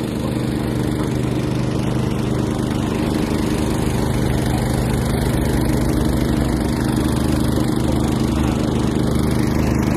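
An engine running steadily close by: a constant pitched drone over a low rumble, with no change in speed.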